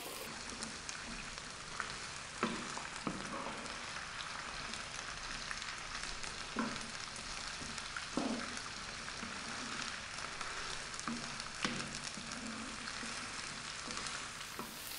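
Green beans, sliced onion, garlic and black olives sizzling steadily in olive oil in a nonstick frying pan, with a wooden spatula stirring and knocking against the pan several times.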